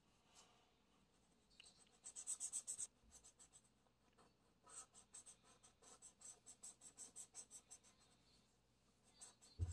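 Blue felt-tip marker scribbling back and forth on paper, colouring in: a quick run of short strokes about two seconds in, then a longer run at about four strokes a second. The strokes are faint.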